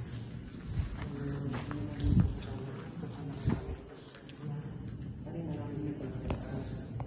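Steady night chorus of crickets, a high, rapidly pulsing trill that does not let up. A few soft thumps come through it, the loudest about two seconds in.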